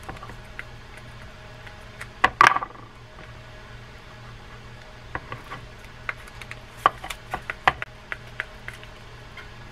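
Needle-nose pliers prying and rocking a stuck click washer on the main shaft of a Shakespeare LX IV spinning reel: a sharp clatter about two seconds in, then a string of small irregular clicks of metal on plastic, over a steady low hum.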